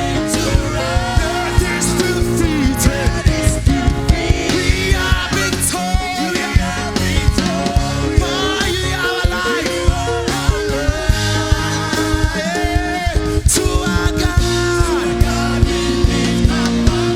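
Gospel worship music: a singing voice over a live band, with drum hits and sustained instrument tones.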